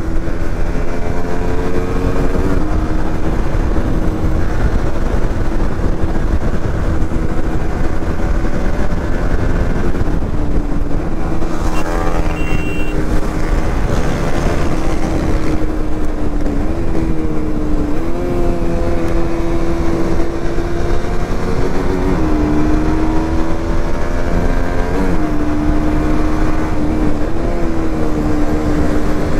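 Motorcycle engine running at road speed under the rider, its note dipping and climbing several times in the second half as the throttle changes, over heavy wind noise on the handlebar camera's microphone.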